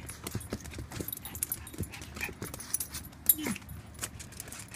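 Small dogs scuffling at close range. One gives a few short whines that fall in pitch, the clearest about three and a half seconds in, over scattered clicks and rustles of claws and fur against a hand.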